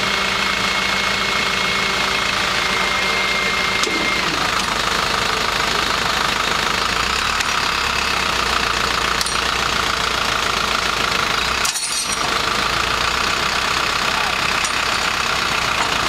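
Tow truck's engine running steadily while its winch drags a pickup truck out of a ditch. A steady high whine sits over the engine for the first four seconds or so, then stops.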